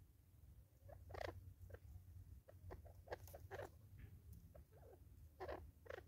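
Faint, irregular taps and scratchy clicks of spurfowl pecking at feed in a plastic container on a wooden stump, over a low steady rumble.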